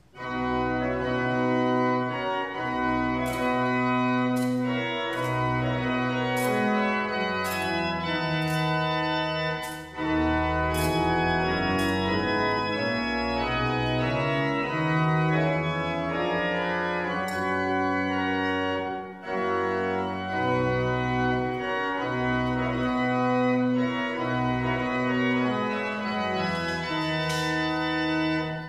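Church pipe organ starts abruptly and plays full sustained chords over a slowly moving bass line, with short breaks between phrases. A run of sharp clicks sounds over it in the first half, and a couple more near the end.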